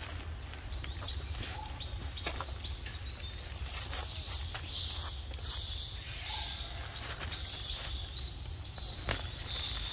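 Outdoor ambience: small birds chirping in short rising notes every second or two over a steady high drone and a low rumble, with scattered sharp clicks and taps as macaques pick up fruit and peanuts from the stone.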